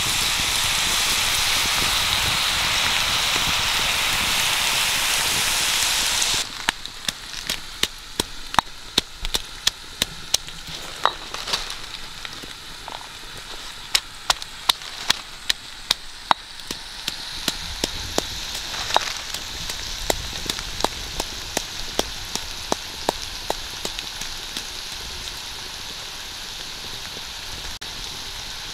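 A loud, steady hiss of food sizzling on a hot stone over a wood fire for about six seconds. It cuts off abruptly, followed by a stone pestle pounding red chillies and peppercorns in a stone mortar: sharp, irregular knocks about one to two a second.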